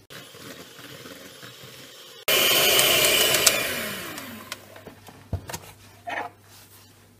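Electric hand mixer whipping powdered whipped-cream mix with cold water in a plastic jug. It starts abruptly about two seconds in, runs loudly, then fades as it winds down, followed by a few light knocks.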